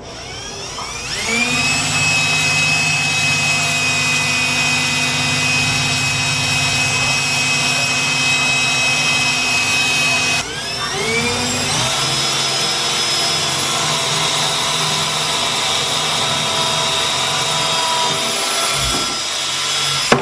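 Cordless drill boring a hole through a cabinet door. The motor winds up to a steady whine, cuts out briefly about halfway, winds up again and runs steadily until it stops near the end.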